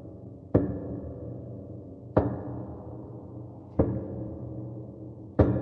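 Horror sound effect of slow, heavy door knocks, each hit followed by a deep bass boom that rings on. Four hits about a second and a half apart, the last one doubled and the loudest.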